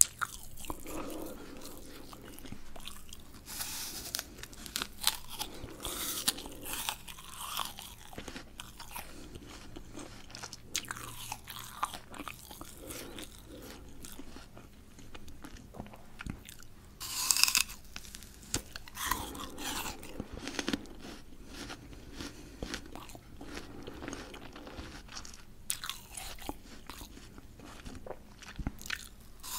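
Biting and chewing peeled raw fruit: crunching bites with chewing between them, one loud crunchy bite about seventeen seconds in.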